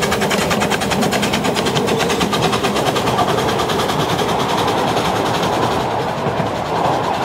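Carriages of a 10¼-inch gauge miniature steam train rolling past on the rails with a fast, even clatter, thinning out as the last carriage passes about six seconds in.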